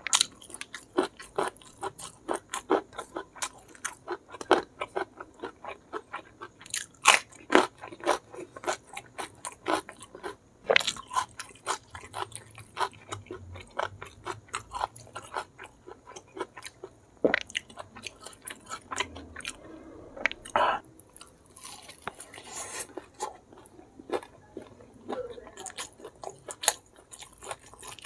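Close-miked chewing and crunching of a mouthful of food, with many sharp crunches and wet mouth clicks: blood cockles and petai beans in chilli sambal, and crispy smashed fried chicken. A few crunches stand out louder than the rest.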